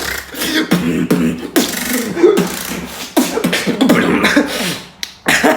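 Human beatboxing: mouth-made drum clicks and snares in a rhythm, with wavering goat-like bleats sung into the beat. The sound dips briefly near the end.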